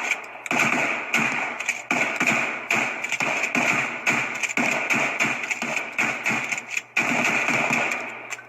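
Shots from a DP-12 12-gauge double-barrel pump shotgun being fired. Sharp blasts come about half a second in and again about seven seconds in, with many smaller cracks and knocks in between.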